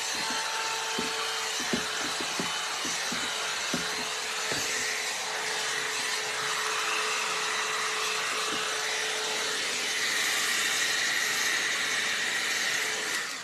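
Hot-air round brush (blow-dryer brush) running steadily, its motor hum under a strong rush of air as it is drawn through the hair, with a few light clicks in the first few seconds. It cuts off right at the end.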